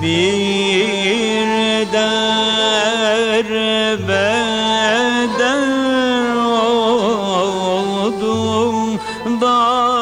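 A man singing a slow Turkish art song in a melismatic style, long held notes decorated with wavering turns and slides, over instrumental accompaniment.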